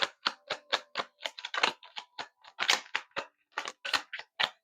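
Tarot cards being shuffled by hand: a quick run of crisp card clicks and snaps, several a second, that stops abruptly near the end.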